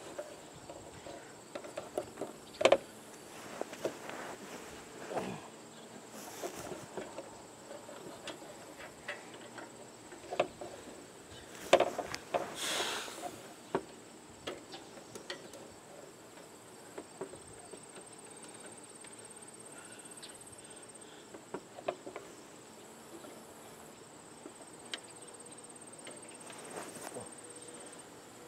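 Scattered clicks, knocks and a brief scrape from hands working inside a White treadle sewing machine's underside to clear a jammed scrap of old leather belt; the sharpest knocks come about 3 s in and near the middle. A steady high insect buzz runs underneath.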